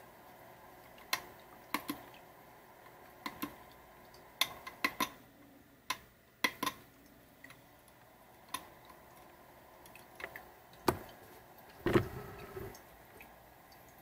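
Irregular sharp clicks and taps from fingers on the plastic top and touch-control panel of a Duux ultrasonic humidifier, about a dozen in all, with two louder knocks near the end.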